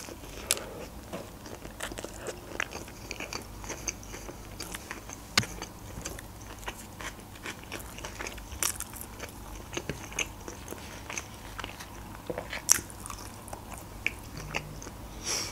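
Close-up biting and chewing of a toasted cheese sandwich and french fries: soft wet chewing with irregular sharp crackles and mouth clicks, a few louder than the rest.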